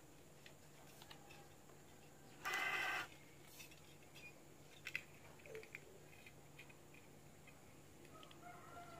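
PVC pipe pieces handled by hand during a dry fit, with one brief plastic scraping rub about two and a half seconds in and a few light clicks and taps around five seconds.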